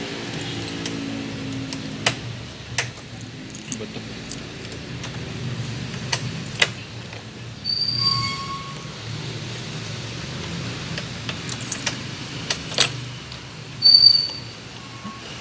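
GY6 scooter engine, hard to start, running low and unevenly after a rev dies away in the first second, with scattered sharp clicks and a few short high squeaks, the loudest near the end. The hard starting comes from liquid gasket maker on the intake manifold being sucked in on the intake stroke.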